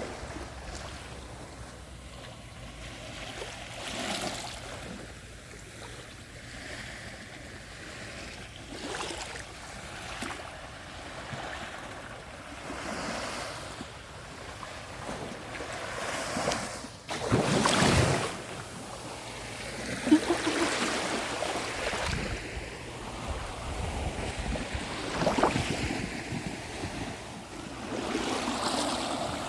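Small, calm sea waves breaking and washing up a sandy beach, swelling and fading every few seconds, with the biggest wash a little past the middle. Some wind on the microphone.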